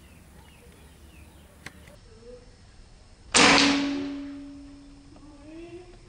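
Air rifle firing one pellet shot about three seconds in: a single loud, sharp report that fades away over about a second and a half.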